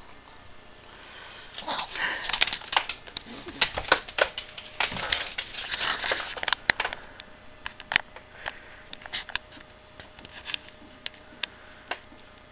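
Shih Tzu puppy snuffling and its claws clicking on a hardwood floor: irregular sharp clicks mixed with short breathy bursts, busiest in the first half and thinning out later.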